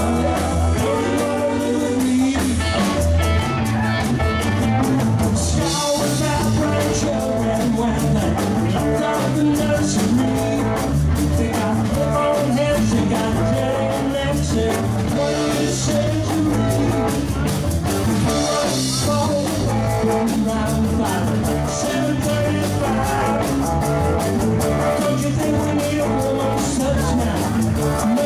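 Rock band playing a song: electric guitar, bass and drum kit keeping a steady beat, with cymbal crashes every few seconds.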